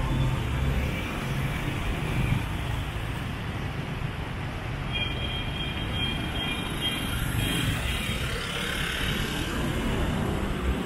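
City street traffic: a steady wash of passing vehicle engines and tyre noise.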